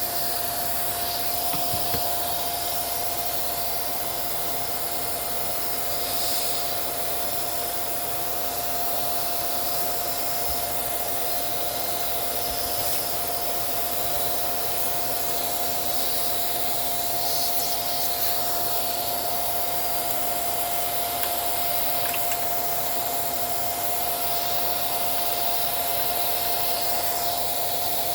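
Small vacuum cleaner running steadily, a constant whine over a rushing hiss, as it sucks dust out of a sewing machine.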